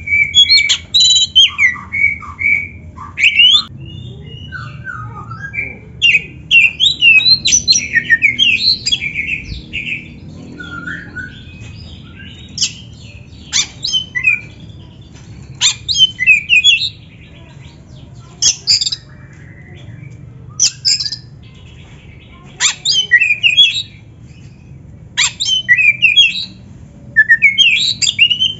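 Oriental magpie-robin singing in short bursts of varied, rapid whistled and harsh notes, a phrase every couple of seconds with brief pauses between, over a low steady hum.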